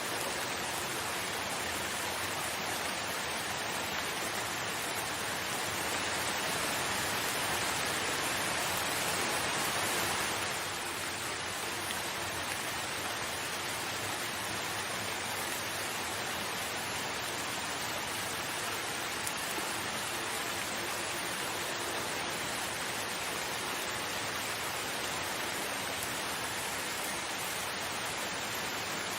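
Steady rain, an even hiss that swells a little and then drops back about ten seconds in.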